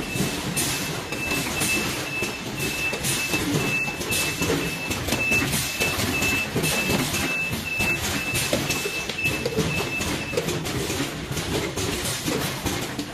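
Automatic six-head bottle filling and capping machine running: the rattle of the conveyor and bottles with many sharp clicks from the machine's moving parts. A short beep repeats about two times a second and stops about ten seconds in.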